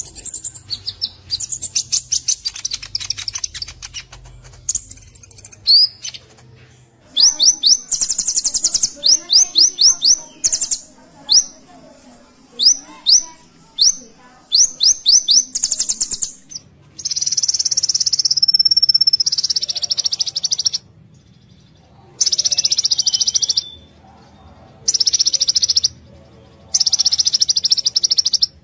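Male Van Hasselt's sunbird (kolibri ninja) singing in full song: fast runs of high, thin, downward-sweeping chips, then from about halfway through several long, high buzzy trills of one to four seconds each with short pauses between.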